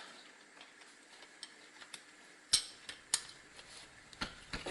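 Hand wrench working on engine bolts, giving scattered sharp metallic clicks and clinks. The loudest come about two and a half seconds in and just after three seconds, with more near the end.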